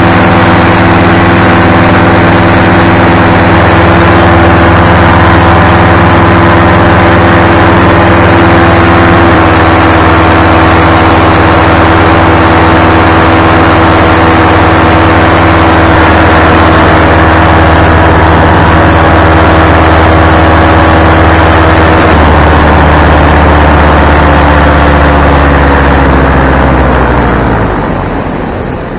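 Powered paraglider's paramotor engine and propeller running steadily at cruise. Near the end the pitch falls and the engine fades as it is throttled back, leaving the rush of wind.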